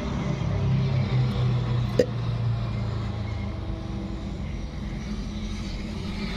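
A steady low hum, with one short sharp sound about two seconds in.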